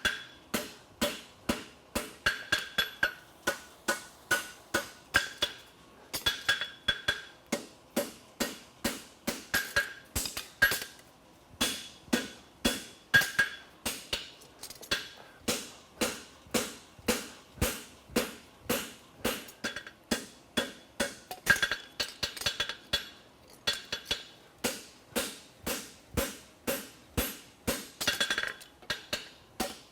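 Farrier's hand hammer striking hot steel on an anvil, about three blows a second with the anvil ringing after many of them and a short pause about halfway: forging a heel caulk on a thick-bar double-caulked hind horseshoe.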